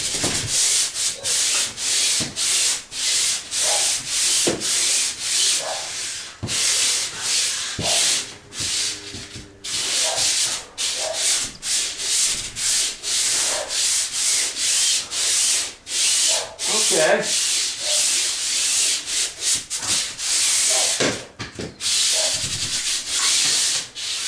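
Pole sander with a swivel head and 100-grit sandpaper rasping back and forth over a sheetrock ceiling, about two strokes a second, taking off the last remnants of popcorn texture.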